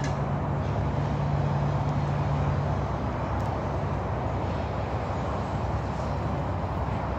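Steady outdoor rumble of engines and traffic, with a low engine hum that fades out about three seconds in.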